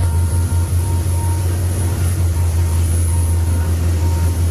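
Boat engine running with a steady, loud low drone.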